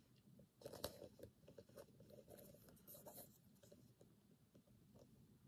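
Faint handling noise of a soft woven leather bucket bag being turned over in the hands: light rustles and small taps, with a brief cluster of them about a second in.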